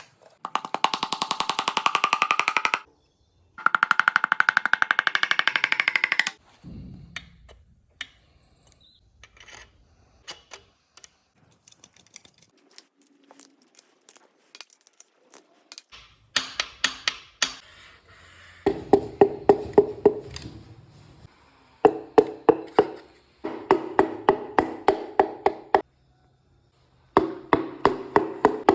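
Workshop tool and metal-work noise. Two runs of a fast, buzzing rattle come first, then scattered light clicks, then from about halfway on bursts of sharp, ringing taps, several a second.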